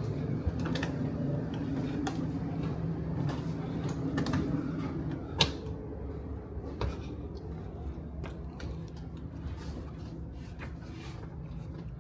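Ferry boarding ambience: a steady low hum with scattered clicks and knocks, like doors and handling noises. The sharpest knock comes about five and a half seconds in, and the hum fades soon after.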